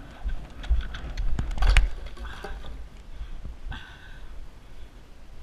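A grey horse cantering on a sand arena surface, heard from a helmet-mounted camera: soft hoofbeats and scattered clicks over low thumps of movement and wind on the microphone, strongest a little under two seconds in.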